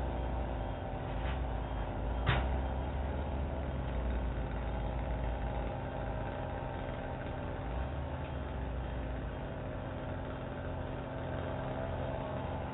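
A large engine running steadily with a low rumble, heard through a doorbell camera's microphone. There is a single sharp knock about two seconds in.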